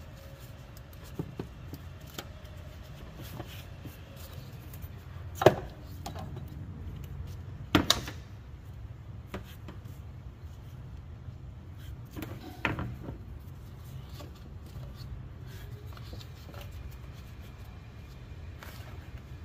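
Hand work in a car's engine bay: light clicks and rubbing, with three sharp knocks a few seconds apart, over a low steady hum.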